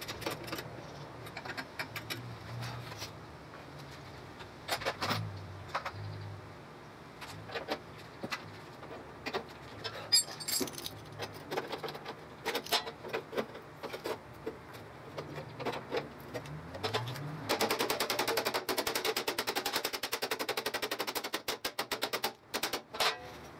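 Metal hand tools and parts clinking and knocking, with a ringing metal clink about ten seconds in, then a fast rattle of closely spaced clicks lasting about four seconds near the end.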